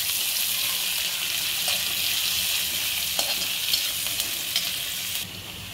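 Onions frying in hot mustard oil in a kadhai: a steady sizzle with a few light taps of the stirring spoon. The sizzle drops off suddenly near the end.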